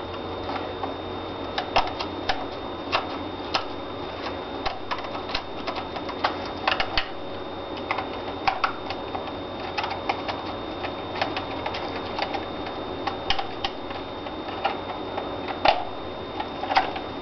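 Two small screws being unscrewed from the battery compartment of an airsoft P90: irregular light clicks and ticks of the tool on the screws and the gun's body, spaced unevenly.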